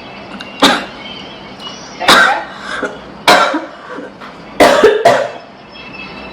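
A woman coughing, about five coughs with the last two close together: put-on, acted coughing meant to pass for a bad chest cough.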